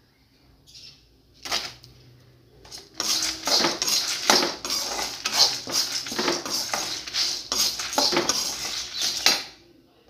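A steel spoon stirring and scraping lentils and dried red chillies around a black iron kadai as they dry-roast for paruppu podi. After a couple of single clinks, a quick run of scrapes and clinks goes on for about six seconds, then stops shortly before the end.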